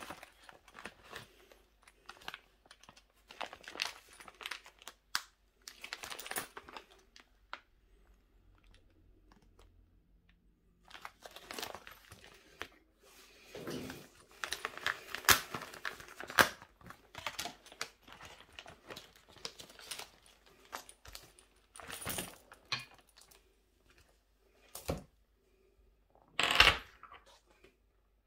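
Plastic parts bag crinkling and rustling as it is handled and opened, in irregular bursts with pauses. A few sharper clicks and knocks from the small metal straplock parts, the loudest near the end.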